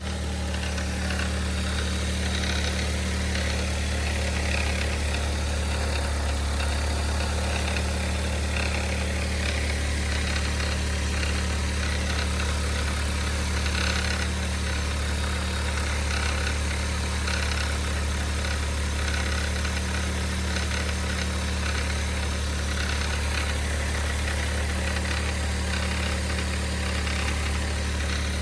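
Mitsubishi i's 660 cc three-cylinder engine idling steadily with abnormal noises: a rattle that the owner traces to a failing air-conditioning compressor, put under extra load by a new auto-tensioner, and a whirring whoosh that he says comes from inside the engine, cause unknown.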